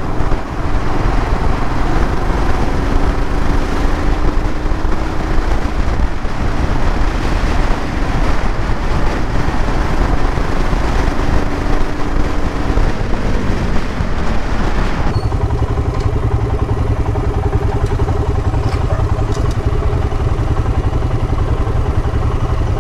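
Motorcycle being ridden, with wind and road noise over a steady engine note. About 13 seconds in, the engine note falls as the bike slows. From about 15 seconds the wind noise drops away, leaving the engine idling with a steady hum.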